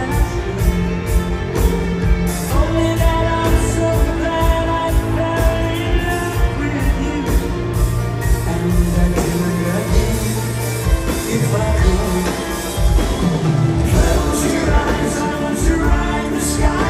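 Live soft-rock band playing: a male lead vocal sung into a microphone over drums, bass and piano, amplified through a concert hall's PA and heard from the audience.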